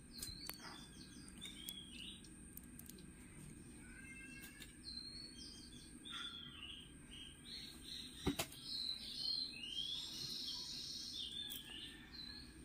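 Small birds chirping and calling over and over in short, quick notes, with a sharp click about eight seconds in.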